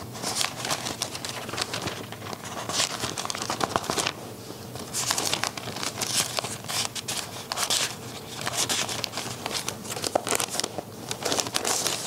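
Thin Bible pages turned by hand near a pulpit microphone: a long run of papery rustles and quick flicks, coming in bursts as page after page is leafed over.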